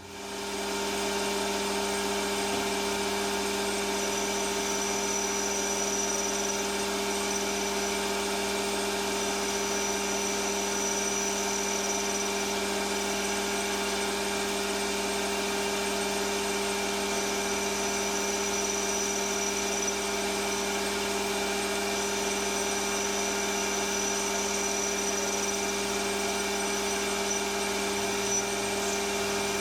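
Metal lathe starting up and running steadily in reverse while turning a 45-degree taper into the inner face of a casting, a steady motor hum with a faint high whine that comes and goes.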